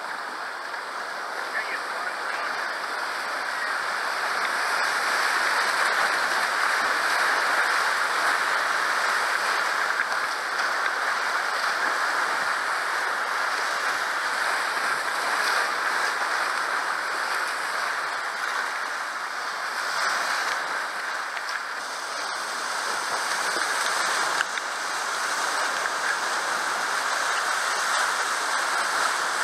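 Whitewater rapids rushing steadily close around a kayak surfing a river wave, a continuous hiss of churning water that swells a little a few seconds in and again near the end.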